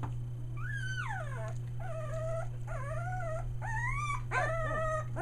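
Three-week-old Australian Shepherd puppies whining and crying, about five high cries one after another, the first sliding steeply down in pitch. A steady low hum runs underneath.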